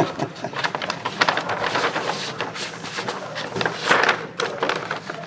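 Rustling and clicking of packaging being handled, a louder rustle about four seconds in.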